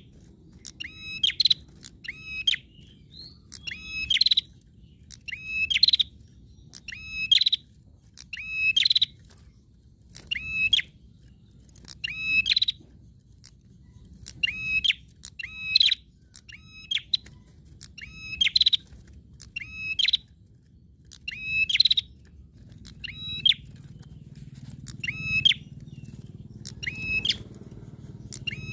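A prenjak songbird singing vigorously: short bursts of rapid, high, ringing notes, repeated about every second and a half.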